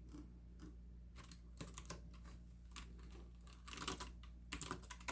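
Faint typing on a computer keyboard: scattered keystrokes at first, then a quicker run of keys in the last second and a half.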